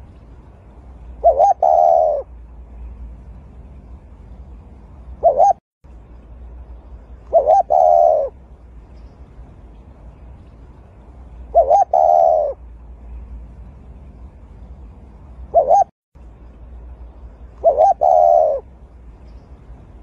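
Spotted dove cooing: a low, two-part coo repeated every four to six seconds, with a shorter single coo now and then between them.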